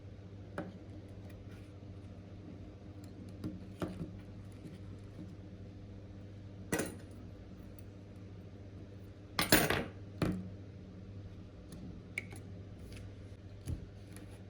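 Small metal tools clicking and clattering on a work surface during a small-electronics repair, with the loudest clatter about two thirds of the way through, over a steady low hum.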